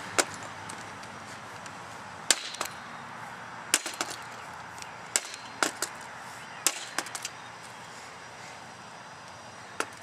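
Repeated blows striking a combination lock resting on a folding table: a series of sharp knocks, some single and some in quick clusters of two to four, spread over the stretch, with a last single knock near the end.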